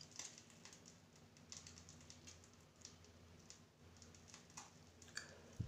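Near silence: faint room tone with a low hum and scattered light clicks, and one soft low thump near the end.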